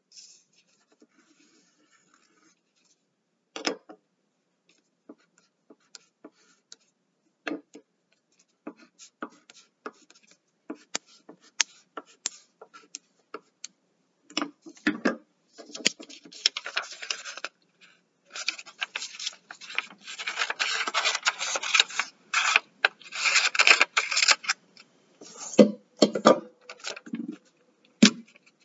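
Crayon and paper scratching and rubbing on a wooden tabletop: scattered short strokes at first, then a long stretch of dense rasping paper noise about halfway through, with a few soft knocks near the end.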